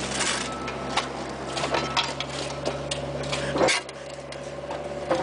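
Steel shovels scraping and striking gravelly soil in a run of sharp, irregular clicks and scrapes, over the steady low hum of a mini excavator's engine. The hum drops out suddenly a little past halfway.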